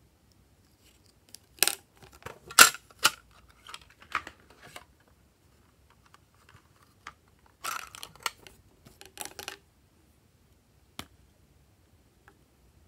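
Glossy slime being pressed and worked by hand, giving sharp crackling pops and clicks in two bursts of a few seconds each, then a single click near the end.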